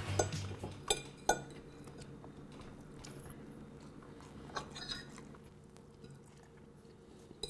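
Metal fork clinking and scraping against a dinner plate during a meal: two sharp clinks about a second in, a few softer ones around five seconds, over faint room hum.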